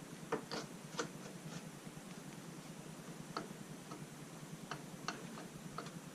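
Light metal clicks and taps at irregular intervals, about a dozen in all, as an aluminum linkage guard is handled and fitted up against a dirt bike's rear suspension linkage.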